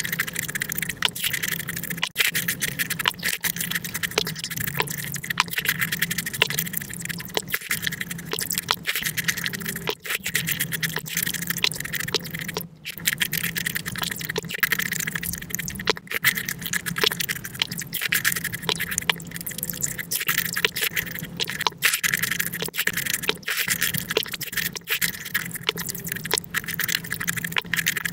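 Fruit-eating mouth sounds sped up five times: chewing and smacking of juicy fruit with spoon scrapes, packed into a dense, continuous run of rapid clicks.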